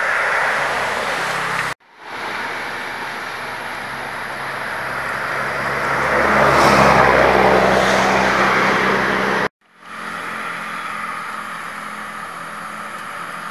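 Street ambience with a steady hiss, and a motor vehicle engine passing that swells to its loudest a few seconds in and fades again. The sound breaks off abruptly twice.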